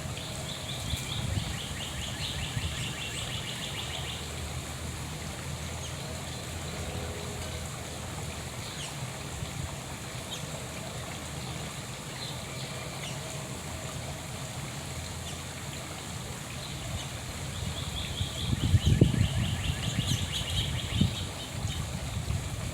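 A songbird sings a rapid trill of many short, high notes, lasting about three seconds, once near the start and again near the end. Under it runs a steady low rumble, with louder low thumps near the end.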